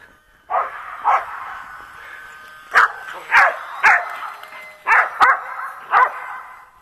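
Australian Shepherd barking, about eight sharp barks in uneven bursts, excited by the plane flying overhead. Behind the barks runs the thin steady whine of a small electric RC plane's motor.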